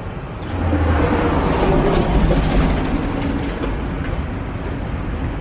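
A large vehicle passing close by: a deep rumble that swells about half a second in, is loudest around two seconds, then slowly fades.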